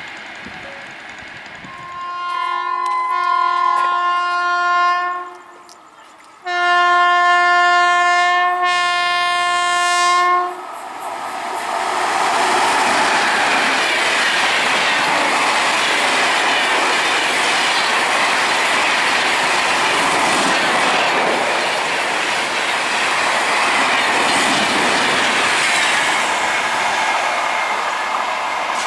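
Indian Railways electric train sounding two long multi-tone horn blasts, each about three to four seconds. It then passes at speed with a loud, steady rush and the clickety-clack of wheels over the rail joints.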